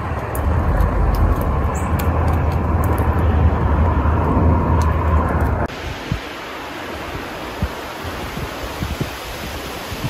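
Wind buffeting the microphone outdoors: a loud, rough low rumble with light crackles, which cuts off abruptly about six seconds in to a quieter, steady rush of air.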